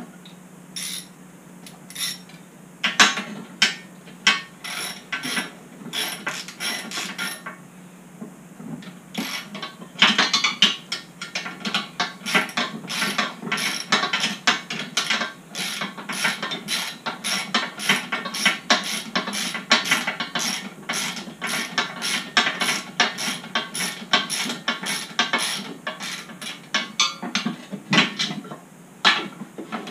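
Ratchet wrench clicking in quick runs as it drives an Allen-head bolt through a 6 mm hex bit into the plow mount. The first runs are short with pauses between them; from about ten seconds in the clicking is almost continuous.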